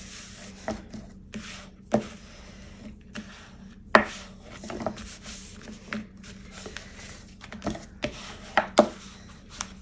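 Hands pressing and smoothing glued card stock on a cutting mat, and a bone folder rubbing over it to set the glued layer, with a few sharp clicks and taps as the card and tool are handled; the sharpest about four seconds in.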